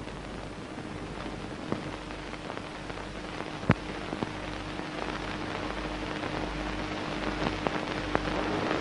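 Dense crackling hiss, like old film-soundtrack noise or rain, slowly growing louder, with scattered sharp clicks (one loud pop a little before the middle) over a faint steady hum. It is the noise layer of an industrial/experimental track.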